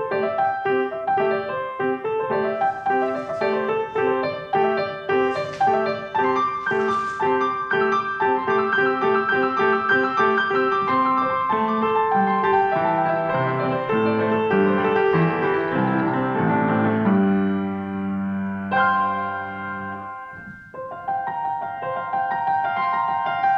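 Grand piano played solo: a steady run of repeated notes that thickens into low chords, held and dying away about twenty seconds in, then after a brief break a new phrase begins.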